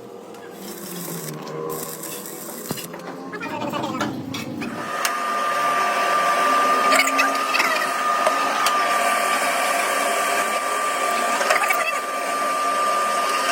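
A workshop machine or power tool starts running about five seconds in and holds a steady high whine, with a few clicks over it.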